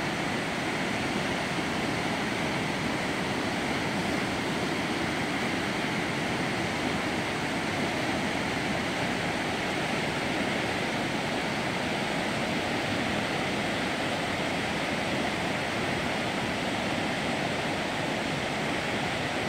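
Flooded creek rushing under a bridge: a steady, unbroken noise of fast, high water.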